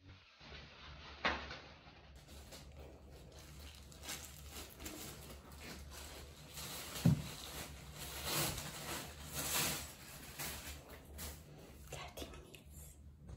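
Hands in a plastic glove rustling and knocking close to the microphone: scattered small clicks and swishes over a faint steady low hum, with one sharper knock about halfway through.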